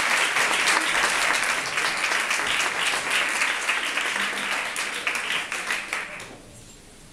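Theatre audience applauding at the end of a performance. The clapping dies away about six seconds in.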